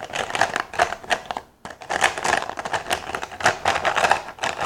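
Plastic felt-tip markers clattering and rattling against each other as a handful are stirred around in their container, a dense run of quick clicks with a short pause about a second and a half in.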